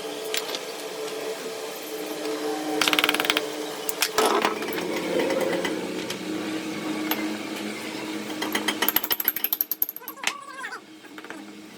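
Rapid mechanical rattling and clicking from tools, in two quick bursts, over a steady hum.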